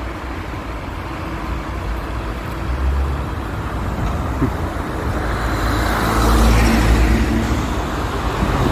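A car driving, its engine rumbling under steady tyre and road noise, heard inside the cabin. The noise swells about six seconds in.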